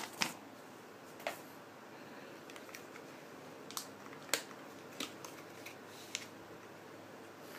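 Handling noise: a few light clicks and taps, spaced about a second apart, as hands set down a paper sheet and lift a small plastic RC helicopter out of its packaging tray.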